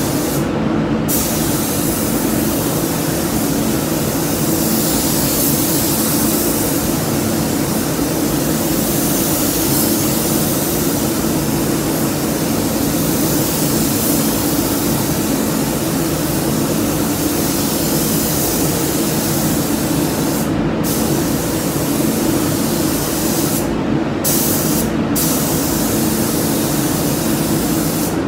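Gravity-feed spray gun hissing steadily as it lays a first coat of red paint on an MGB body. The hiss cuts out briefly about a second in, around twenty seconds in and twice near the end as the trigger is let off between passes, over a steady low drone.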